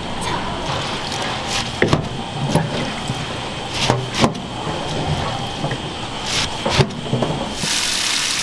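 A few sharp clicks and knocks from kitchen handling, then a tap running hard from about seven and a half seconds in: water pouring into a stainless-steel sink full of bracken.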